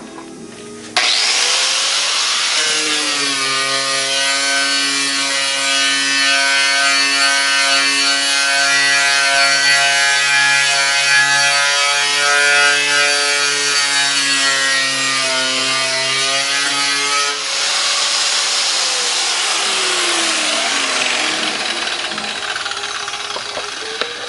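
A Makita angle grinder with a stringer bead (knotted wire) wheel starts up about a second in and scours the bare steel underbody of a car, stripping leftover undercoating and paint. Its whine rises as it comes up to speed and then runs steadily over loud scraping. It is switched off around two-thirds of the way through, and the wheel winds down with a falling whine as the noise fades.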